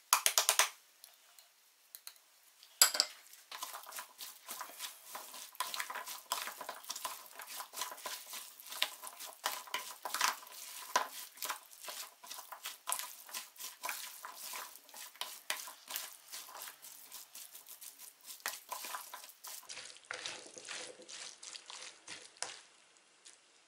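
A wooden spoon stirring and scraping a mix of diced potatoes, onions and bacon in a large mixing bowl: a dense, irregular run of small clicks and scrapes. Near the start, a short rustle and a sharp knock as spices are tipped from a small porcelain bowl onto the mix.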